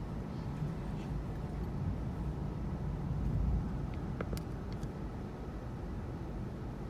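Thunderstorm ambience: a low continuous rumble that swells briefly about halfway through, with a few faint sharp ticks soon after.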